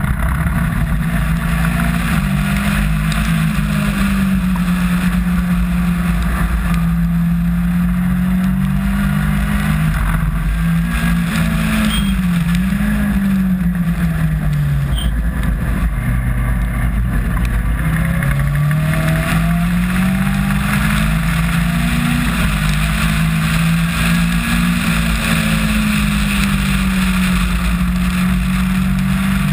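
Caterham R300 Superlight race car's engine heard from on board at racing speed, its revs climbing and dropping through gear changes, with a sharp drop and climb again about halfway through. A constant low rumble and hiss of wind and wet road lies underneath.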